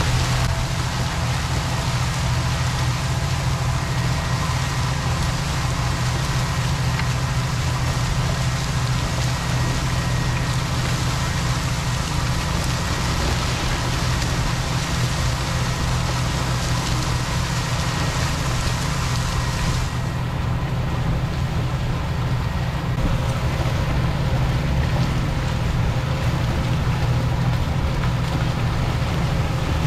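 Tractor diesel engine running steadily under load: a constant low rumble with a faint steady whine above it. About twenty seconds in, the hiss in the upper range drops away.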